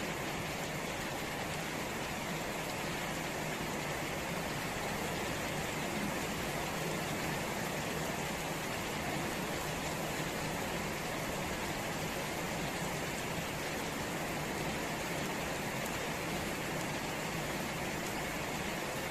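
Steady rain falling on leaves and wet, puddled ground: an even, unbroken hiss.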